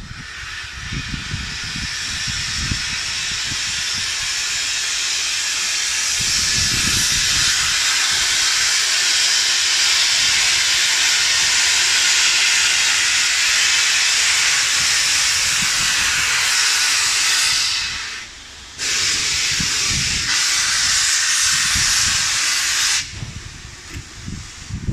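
LNER B12/3 4-6-0 steam locomotive blowing steam from its cylinder drain cocks: a loud, steady hiss that builds over the first few seconds, drops out briefly about 18 seconds in, and stops abruptly about 23 seconds in.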